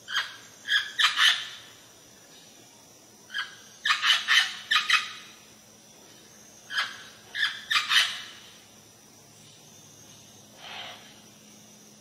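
Parrot giving loud, short squawking calls in three quick bursts of four to six calls each, with one fainter call near the end.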